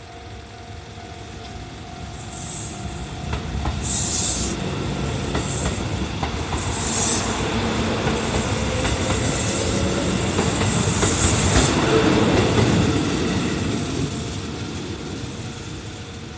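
Kintetsu 19200 series electric limited-express train passing, its wheels clattering over the rail joints with short high-pitched squeals at intervals. The sound builds from about two seconds in, is loudest around twelve seconds in, then fades.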